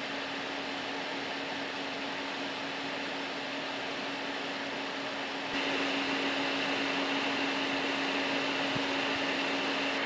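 Small 12-volt cooling fans on a Peltier cooler module's heatsinks running: a steady whir with a low hum, growing louder and picking up a higher whine about halfway through.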